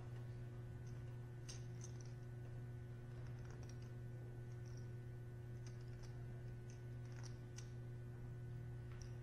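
Faint, scattered clicks of clay poker chips being handled at the table, coming irregularly with some in quick pairs, over a steady low hum.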